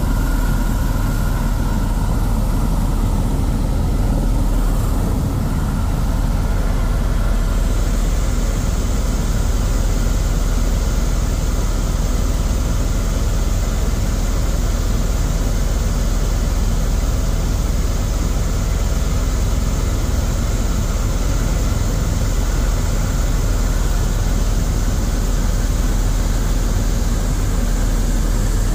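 Helicopter in flight: engine and rotor running with a steady, loud low drone. A higher hiss joins about a quarter of the way in and holds.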